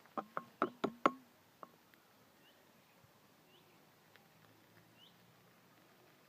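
A quick run of about five sharp knocks or taps in the first second, then quiet with a few faint, short rising bird chirps.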